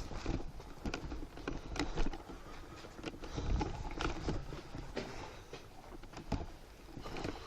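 Irregular light knocks and rustling close to the microphone, like a player's footsteps and kit moving.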